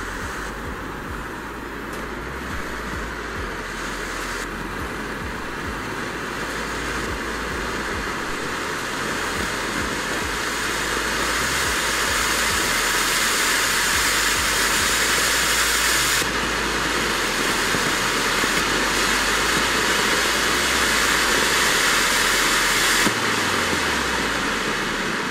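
Weco Dominator ground fountain (a 95 g firework volcano) burning: the steady rushing hiss of its spark jet. It swells louder about halfway through and fades near the end as the fountain burns down.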